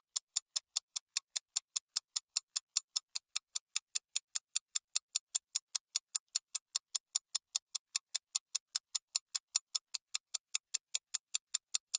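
Typing sound effect: a steady run of short key clicks, about five a second, keeping time with captions typing out letter by letter.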